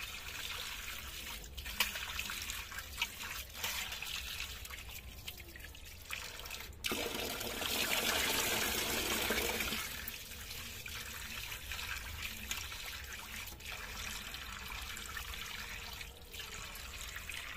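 Tap water running into a steel plate of urad and chana dal while a hand swirls the lentils to wash them. About seven seconds in, the rinse water is tipped off over the hand into a bucket, and for a few seconds it is louder.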